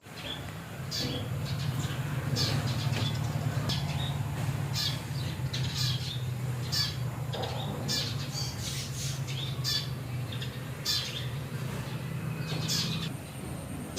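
Short, high-pitched squeaky animal calls repeating irregularly over a steady low hum.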